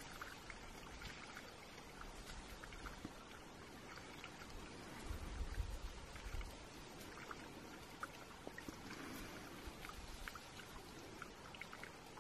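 Faint outdoor ambience of trickling water with scattered light ticks, and a low gust of wind buffeting the microphone about five to six and a half seconds in.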